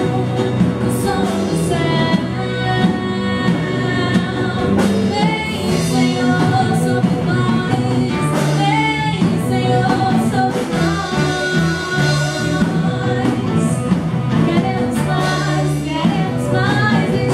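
A Portuguese worship song playing: a voice singing over band accompaniment.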